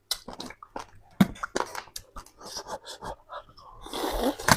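Close-miked eating sounds: wet chewing, many short mouth clicks and lip smacks, with a longer noisy breath out about four seconds in.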